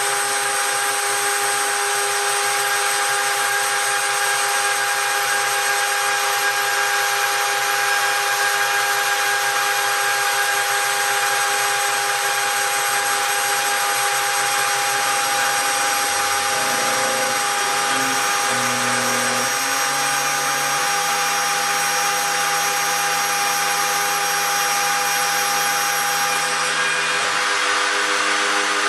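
Home-built CNC gantry router running steadily, its spindle giving a high, even whine while engraving brass. From about halfway through, lower tones shift in steps as the stepper motors move the axes.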